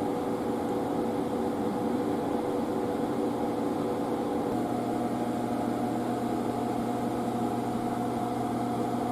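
Steady running noise inside a train carriage: a constant mechanical hum over a low rumble, its tones shifting slightly about four and a half seconds in.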